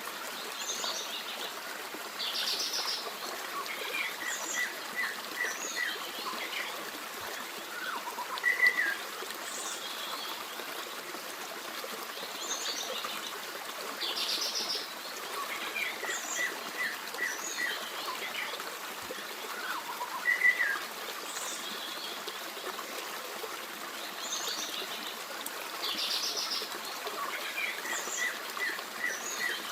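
Steady babble of a forest stream with small birds calling and chirping over it, including a quick run of short evenly spaced notes; the same set of calls comes round again about every twelve seconds, as in a looped recording.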